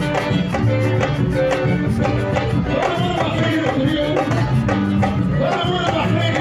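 A live band playing Bahian samba, with busy, steady hand percussion and a singing voice over it.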